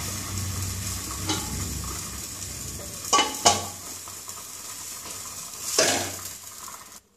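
A pot of rice, chicken and milky liquid bubbling on a gas burner, then a stainless steel lid is set on the pot with two metallic clanks about three seconds in, and one more knock near the end. The sound cuts off suddenly just before the end.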